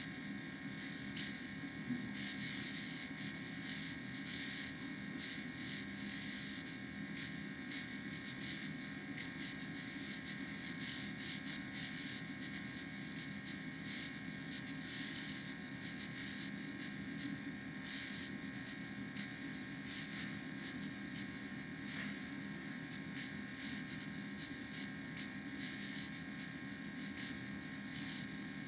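Steady low hiss and hum with several faint steady tones and a flickering high hiss, no speech or music: the background noise of a screen recording once the played video has stopped.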